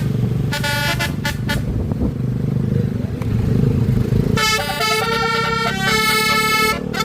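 Bus telolet horn, a multi-tone 'basuri' air horn, playing a tune: a quick run of short toots about half a second in, then from about four and a half seconds a series of longer held chords that change note. A steady low engine drone runs under it.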